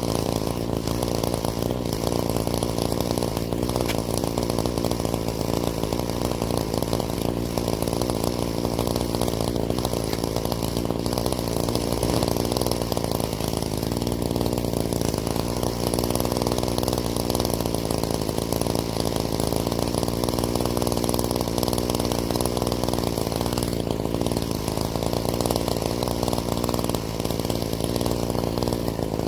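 Gas string trimmer (weed eater) engine running steadily at working speed while cutting thick weeds.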